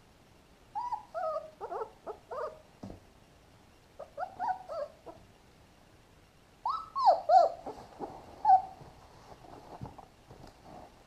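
Three-week-old puppies whimpering and squealing in short high cries that slide up and down in pitch. The cries come in three bouts, the last the loudest.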